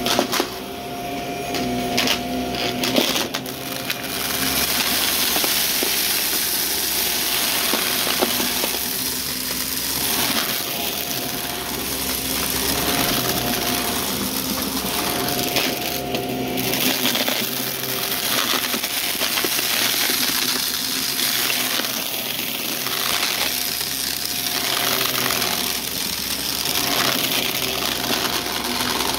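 Shark Navigator upright vacuum running steadily with its brushroll spinning, picking up crunchy debris that crackles and rattles through it. The crunching is densest in the first few seconds.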